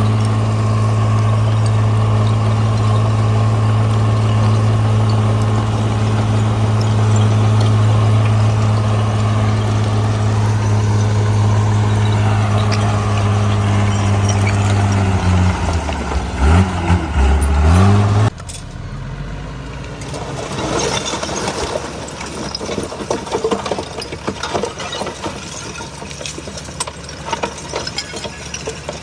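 CAT D3C bulldozer's diesel engine running at a steady pitch, which then swings up and down for a few seconds. About 18 seconds in the engine sound cuts off abruptly, leaving a quieter crackling, rattling noise.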